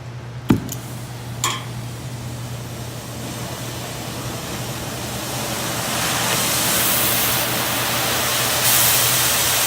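Two sharp snaps of a flint striker, then the hiss of an oxy-acetylene torch that grows steadily louder as the gas is opened up, stepping up again near the end.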